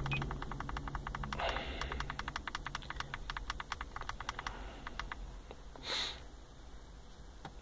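Car stereo volume knob being turned down, a rapid run of small clicks, about ten a second, that thins out and stops about four and a half seconds in. A low steady hum fades out early, and there is a short hiss near the end.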